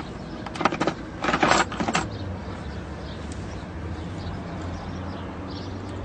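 A quick cluster of clicks and short scrapes from a metal N-type coax connector being worked onto braided LMR400 cable, loudest a little over a second in. A steady low hum continues underneath.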